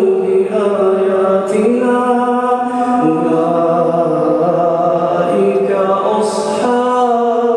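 A man reciting the Quran in a slow melodic chant, holding long notes and stepping between pitches, with brief pauses for breath.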